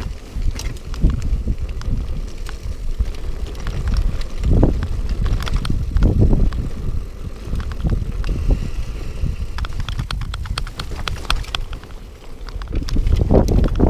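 Pinnacle Neon 4 hybrid bike riding over a rough grass-and-dirt track: a steady low rumble from the tyres and frame with frequent rattling clicks as the bike jolts over bumps, growing louder near the end.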